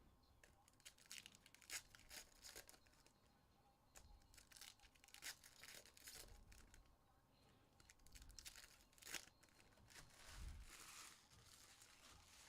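Faint crinkling and tearing of plastic wrapping as a trading card box or pack is torn open, in a string of short crackles and rips.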